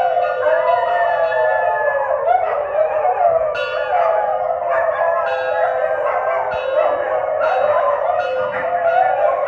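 Dog howling in long wavering cries.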